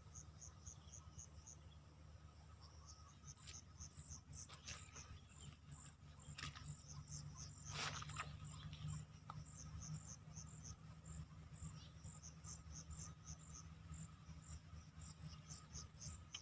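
Insects chirping in a steady rhythm of about three high chirps a second, over a low steady hum, with a few soft knocks about a third and halfway through.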